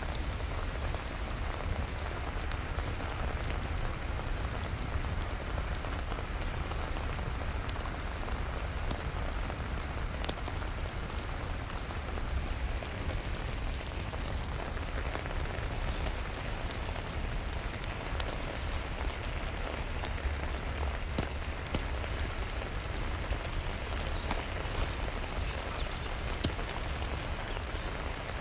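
Steady rain falling, with scattered sharp ticks and pops through it.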